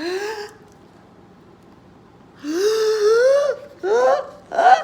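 A woman's voice acting out a building sneeze with drawn-in 'ah... ahh... ah' gasps, each rising in pitch. There is one short gasp, a pause of about two seconds, then a longer gasp and two quicker ones: the wind-up to an 'ah-choo'.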